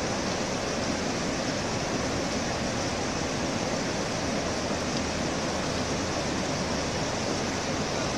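Fast mountain river rushing over boulders and rapids: a steady, even rush of white water.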